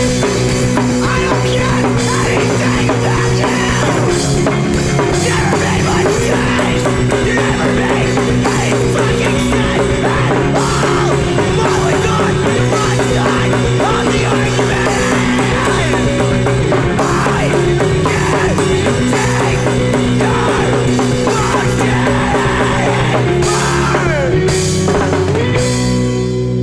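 Rock band recording playing a loud, dense full-band section with drum kit.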